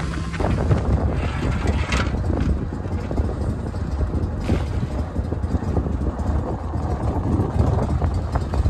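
Wind buffeting the microphone over a boat at rest, with a cast net thrown out and splashing onto the water about four and a half seconds in.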